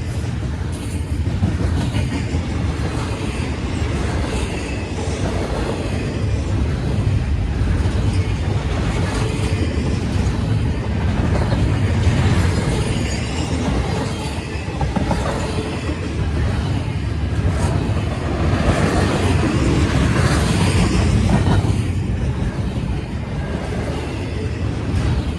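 Freight train rolling past, a steady rumble of railcars with the wheels clacking over the rail joints.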